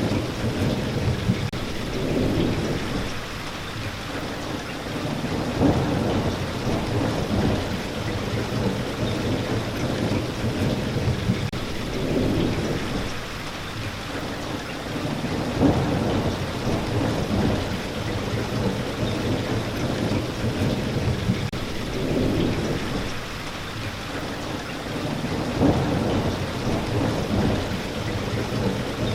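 Steady heavy rain with thunder rolling in the background, low rumbles swelling and fading several times.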